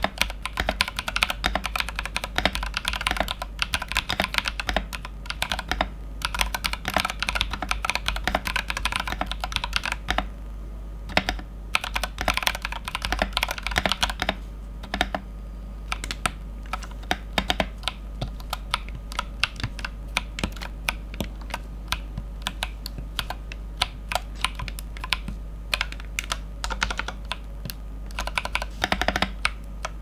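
Typing on a Keywalker IFD68 Pro 68-key mechanical keyboard fitted with Porcelain Blue switches. Fast runs of keystrokes give way to scattered single presses through the middle, then pick up to a fast run again near the end.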